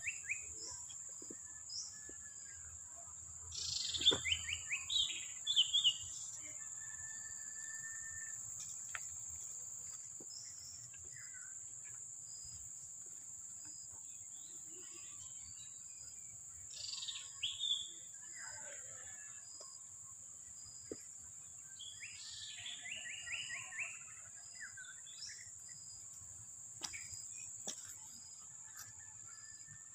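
Rural outdoor ambience: a steady high-pitched insect drone with a softer pulsing insect call beneath it. Birds call over it, with quick runs of notes falling in pitch about four seconds in, again just before halfway, and again past two-thirds of the way.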